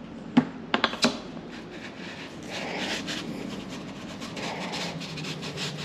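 Flared end of a 1¼-inch PVC pipe knocked down onto a sandpaper-topped wooden jig a few times, then twisted round against the 150-grit paper: a steady, rapidly repeating scraping as it grinds down the inner lip left by heat-flaring.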